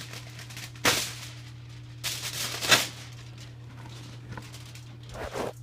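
Sheet of aluminum foil crinkling as it is handled: a sharp crackle about a second in, then a longer crinkling rustle around two to three seconds in.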